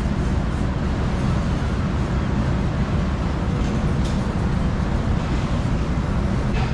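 A large ferry's diesel engines running, a steady low rumble with a rushing noise over it.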